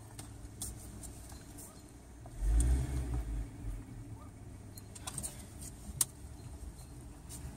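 Car engine and road noise heard from inside the cabin of a moving car. The engine swells into a deeper, louder rumble for about a second near the middle as the learner driver gives it a little gas. A couple of sharp clicks come later.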